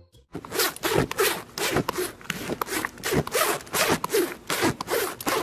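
A horse's muzzle rubbing and nibbling right against the microphone: a quick run of rasping scrapes, about four a second, starting abruptly just after the start.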